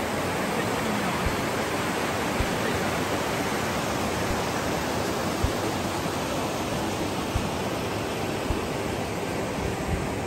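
Mountain river rushing over rocks: a steady, even rush of water, with a few soft low thumps.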